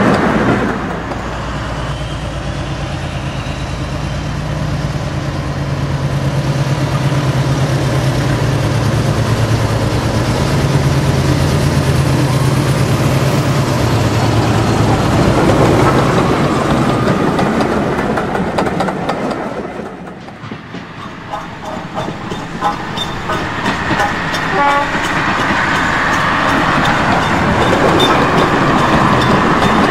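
Model trains running on a model railway layout: a steady low engine hum from a model diesel locomotive over the rolling noise of the train, which dies away about two-thirds through. A run of sharp clicks follows as wheels cross rail joints, then the rolling noise builds again.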